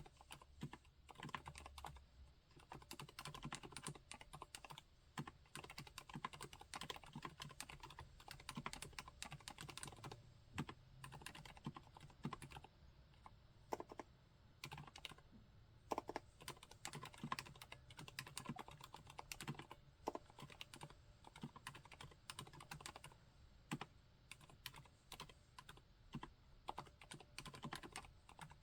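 Continuous typing on a MONOKEI Standard mechanical keyboard fitted with Cherry MX Silent Red linear switches: a quiet, steady stream of keystrokes.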